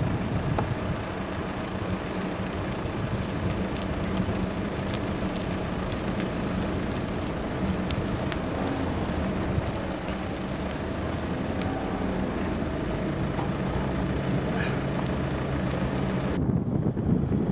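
Steady outdoor road rumble with a low hum and wind on the microphone while a group of mountain bikes rolls past on a cleared road. About a second before the end it switches to louder, duller wind buffeting on the microphone.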